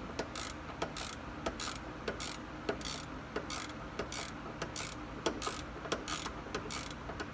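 A steady series of sharp mechanical clicks, about one every two-thirds of a second, over a low hum.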